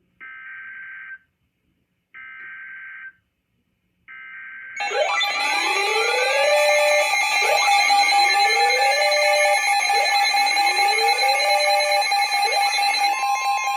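Emergency Alert System data header: three short buzzy bursts about a second long and a second apart. Then several alert tones sound at once, steady alarm tones with a rising whoop repeating about every two and a half seconds, and another steady tone joins near the end.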